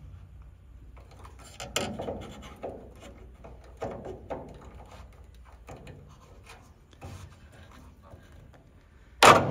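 A hand tool gripping and prying a drilled-out rivet shank from a thick stack of aluminium aircraft structure: scattered light metal clicks and scrapes, then one loud sharp clack near the end.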